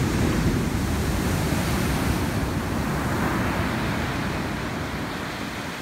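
Heavy shorebreak surf crashing and washing up a sand beach, a dense, steady rush of water that eases off gradually over the last couple of seconds.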